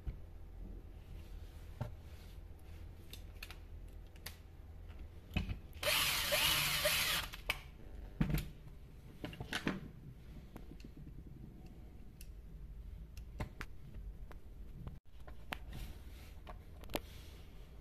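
Chainsaw parts and hand tools clicking and knocking on the bench as the saw's body is reassembled. About six seconds in comes one loud burst of rushing noise lasting just over a second.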